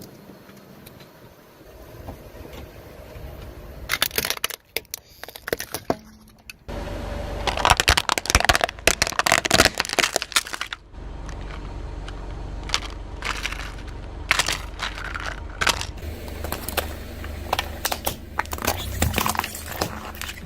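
A car tyre rolling slowly over brittle objects and crushing them in a series of cracks and crunches, loudest from about seven to eleven seconds in, with scattered cracks later. The car's engine runs with a low steady hum from about seven seconds in.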